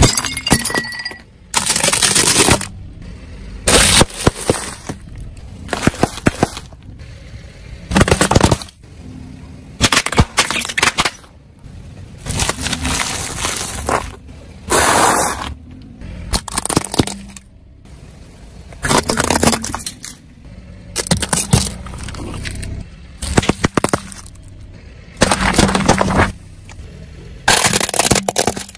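A car tyre rolling over and crushing brittle objects and soda cans: short bursts of cracking and crunching every second or two, with the cans bursting and spraying.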